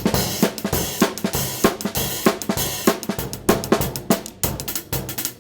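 Drum kit played in a fast, busy pattern: rapid snare and kick strokes under ringing cymbals.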